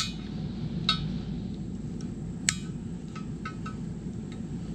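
A few sharp metallic clinks of a hand tool against a steel wheel rim while the old valve stem is being worked out: one at the start, one about a second in, a louder one about two and a half seconds in, then a few light ticks.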